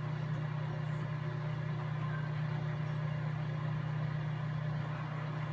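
Microwave oven running with a steady, even hum, heating a bag of pork rinds before any popping starts.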